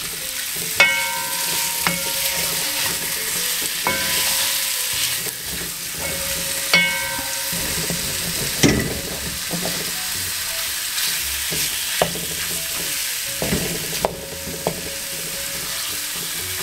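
Cubed beef sizzling as it browns in hot olive oil in a metal pot, stirred with a wooden spoon. The spoon knocks against the pot several times, each knock ringing briefly.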